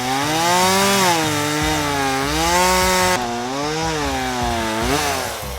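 Chainsaw engine revving, its pitch rising and falling again and again, with an abrupt change in tone about three seconds in.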